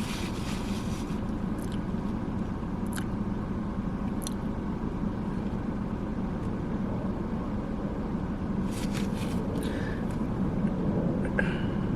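Steady low rumble inside a car, with a faint constant hum and a few short, faint clicks scattered through it.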